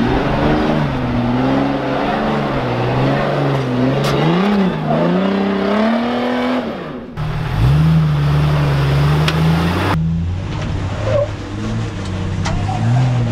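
Jeep engine revving up and down in repeated bursts as it crawls up a steep rock ledge. About seven and ten seconds in, the engine sound changes abruptly, first to a high steady rev and then to a lower, steadier engine note.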